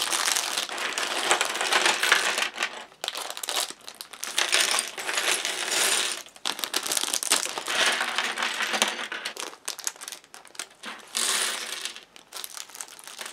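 Plastic bags of Lego pieces being handled and crinkled, with small plastic bricks clattering onto a table as they are poured out.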